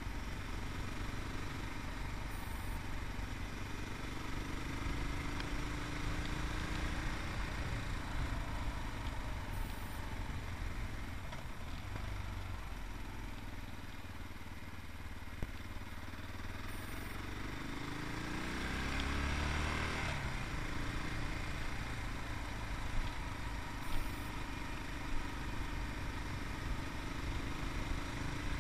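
Yamaha MT-03's 660cc single-cylinder engine running on the move under a steady wind rush, its pitch rising and falling with the throttle. About two-thirds of the way through it swells louder, with a quick rise in pitch.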